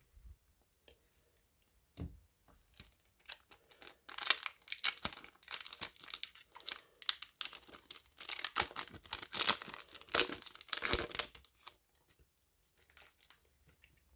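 A Yu-Gi-Oh booster pack's foil wrapper being torn open and crinkled. The crackling starts about four seconds in and runs for about seven seconds, after a quiet start with a soft tap.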